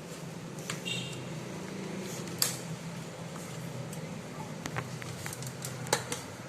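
Sharp plastic clicks and snaps of an all-in-one PC's back cover being pried open, two louder snaps about two and a half and six seconds in, over a steady low hum.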